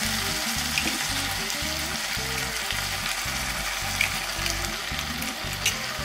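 Broad beans, peas and bacon sizzling steadily in hot olive oil in a frying pan. A few short light clicks come as two eggs are cracked into the pan.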